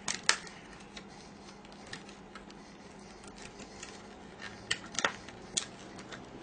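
Stiff plastic blister packaging of a laptop RAM module being handled and opened, crackling with scattered sharp clicks and snaps: two just at the start and a cluster of louder snaps about five seconds in.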